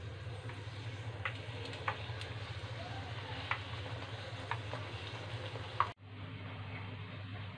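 Luchi sizzling as it fries in hot oil, with a few sharp clicks along the way. The sizzle cuts off about six seconds in, leaving a steady low hum.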